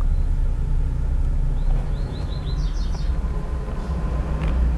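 Low steady rumble in a car's cabin, with a quick run of about six short, high, bird-like chirps about two seconds in.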